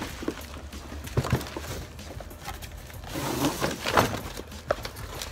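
Cardboard box and its cardboard insert being handled and lifted out: rubbing and scraping of cardboard with a few sharp knocks, the loudest about four seconds in.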